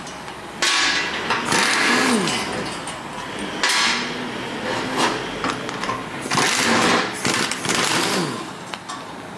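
Half-inch air impact wrench run in several short bursts, spinning out the bolts that hold the puller to the harmonic balancer, its pitch rising and falling as it spins up and stops each time.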